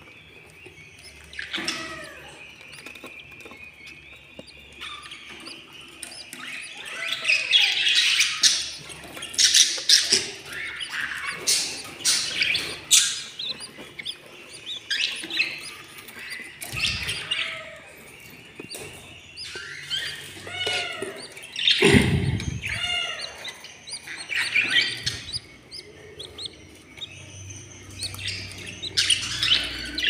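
Budgerigars chirping and giving harsh squawks again and again in a nest box where the chicks are being handled. One louder, low, falling sound comes about two-thirds of the way in.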